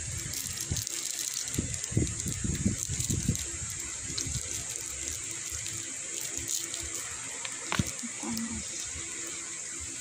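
A spatula stirring and scraping thick cookie dough in a stainless steel bowl, with uneven scrapes and soft knocks, a sharp click near the end, and a steady hiss behind.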